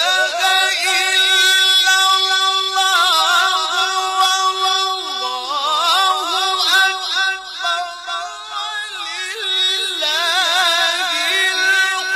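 A voice singing a wavering, ornamented melody that slides up and down over a steady held drone note.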